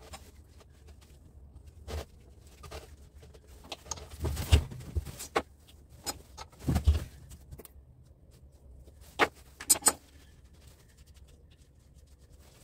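Hand tools handled on a workbench: pliers picked up and set down with scattered clicks, knocks and small rattles of metal, louder clusters about two, four to five, seven and nine to ten seconds in.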